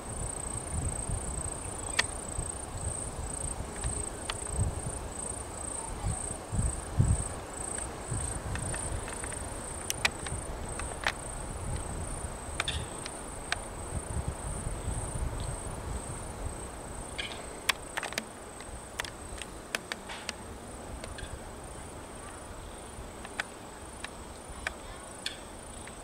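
Insect chirping: a high-pitched pulse repeating about twice a second, steady throughout, over a low rumble of wind on the microphone and a few faint clicks.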